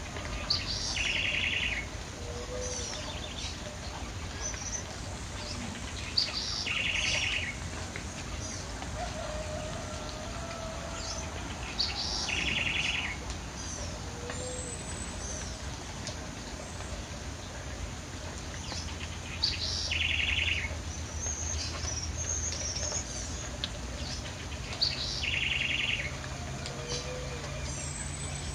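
Wild birds singing, one bird repeating the same short song about every six seconds: a sharp high note followed by a buzzy trill lasting under a second. Fainter chirps from other birds fall between its songs.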